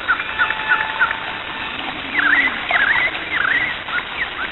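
Animal calls over a steady hiss: short chirps repeated in quick succession, then a few swooping calls in the second half.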